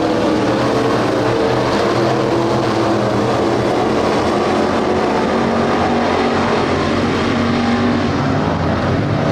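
A field of dirt-track street stock race cars, their V8 engines running together in a loud, steady drone, with several engine notes rising and falling as the cars go around the track.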